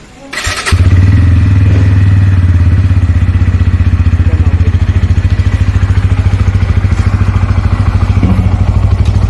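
Bajaj Pulsar N160's single-cylinder engine starting up within the first second, then idling steadily. A 'kat kat' chain clatter rides on the idle, which the owner traces to a loose, worn chain connecting lock.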